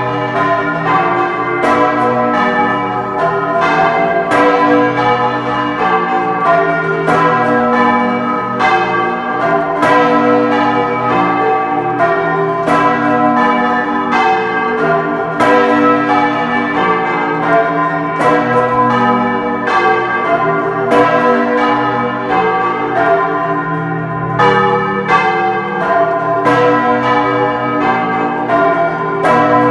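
Large bronze church bells of the cathedral's belfry, swung full circle on hand-pulled ropes in the Bolognese style, ringing a continuous peal of overlapping strokes, roughly one to two a second. Heard close up inside the bell chamber.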